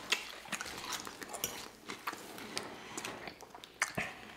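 Forks clicking and scraping in glass salad bowls, mixed with soft chewing and mouth sounds of eating salad; a sharper click comes just before the end.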